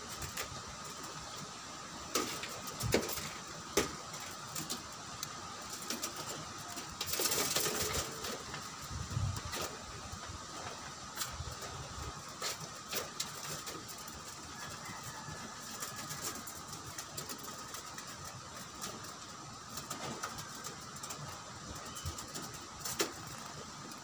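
Outdoor background with a steady faint hum, a vehicle passing at a distance about seven to nine seconds in, and scattered short sharp clicks.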